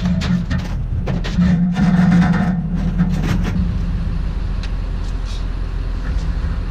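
Truck engine running with a steady low hum, with a few short knocks and rattles in the first few seconds.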